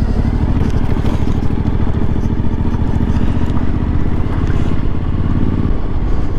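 Suzuki V-Strom motorcycle engine running at low road speed with a steady pulsing note, with scraping and clattering from the tyres on a rough dirt road. The engine note changes about six seconds in.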